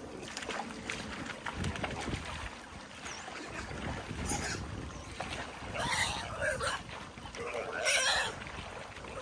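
A piglet squealing several times in the second half while it is washed in a shallow stream, with water splashing and sloshing around it.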